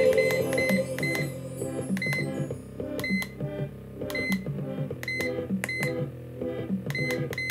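Background instrumental music with a steady beat, over short electronic beeps from a handheld car diagnostic scan tool's keypad as its buttons are pressed, several times at irregular intervals.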